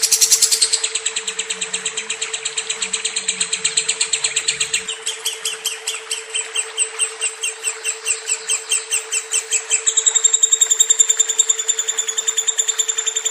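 Lovebird singing a long, unbroken run of rapid high chirps, about six a second, the long-duration 'ngekek' song that lovebird keepers prize. The chirps shift in pitch about five seconds in and again near ten seconds.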